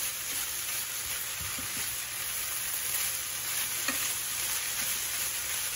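Shredded chicken sizzling in a hot skillet on high heat while it is stirred and turned with a spatula, a steady frying hiss with a few soft scrapes and knocks of the spatula in the pan.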